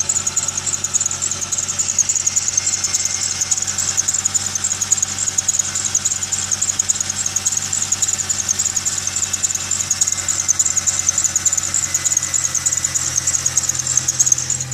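Idling engine with a continuous fast, high-pitched chirping squeal from the accessory belt drive over a steady low engine hum.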